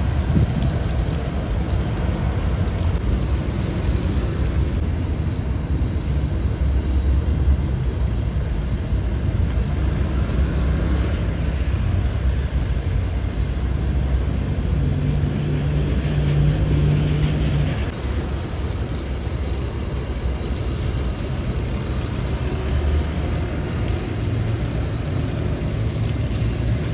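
Chempedak pieces deep-frying in a large wok of oil, the oil bubbling and sizzling steadily over a continuous low rumble, with a low hum for a few seconds past the middle.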